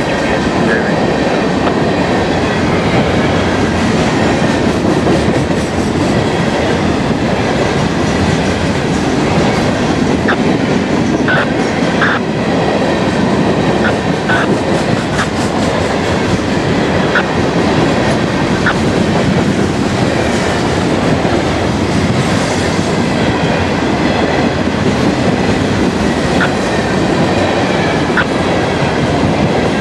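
Freight cars of a Florida East Coast Railway freight train rolling past, a loud, steady noise of steel wheels on the rails. Short high squeaks from the cars come through several times from about ten seconds in.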